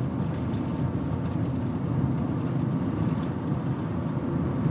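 Steady low drone of engine and road noise inside a camper van's cab as it climbs a steep mountain grade under heavy engine load.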